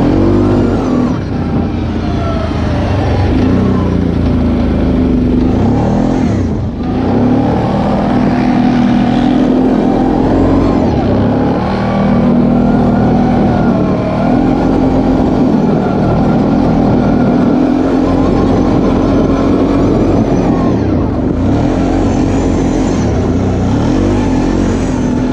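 Kawasaki ATV engine running under throttle as the quad is ridden, its pitch rising and falling with speed-ups and easings-off. The engine note drops briefly about six and a half seconds in and again around twenty-one seconds.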